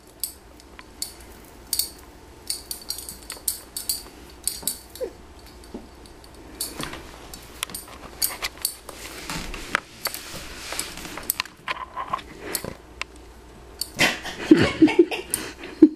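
A shot glass on a strand of plastic Mardi Gras beads clinking and rattling in scattered small sharp clicks as a cat bats at it. There is a stretch of rustling about nine seconds in, and a louder cluster of knocks with a short vocal sound near the end.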